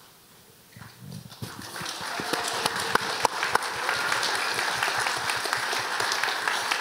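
Audience applauding, starting about a second in, swelling over the next second and then holding steady.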